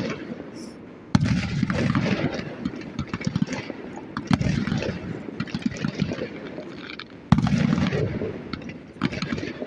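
Fireworks going off: a loud burst about a second in, then further bursts roughly every three seconds, each followed by a spell of rapid crackling pops that fade away.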